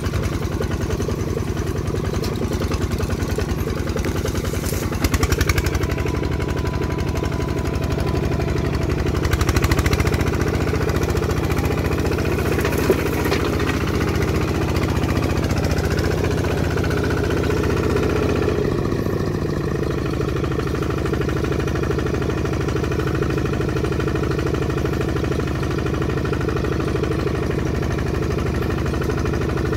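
Kubota two-wheel walking tractor's single-cylinder diesel engine running steadily with an even, rapid chug. A single sharp clank sounds near the middle, and the engine note drops slightly about two-thirds of the way through.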